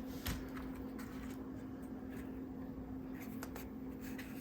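Light clicks and rubbing from handling a small HO-scale model diesel locomotive, over a faint steady hum.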